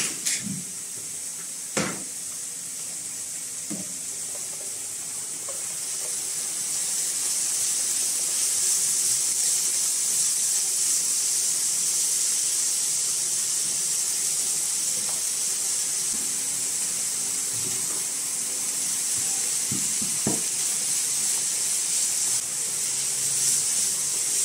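Chicken pieces and chopped carrot and peppers sizzling steadily in a frying pan, the hiss building over the first few seconds and then holding. A few light clicks and knocks of utensils, the sharpest about two seconds in.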